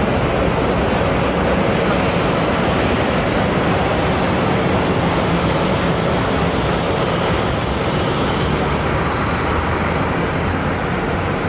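Steady noise from a large jet airliner's engines during a landing, easing slightly near the end.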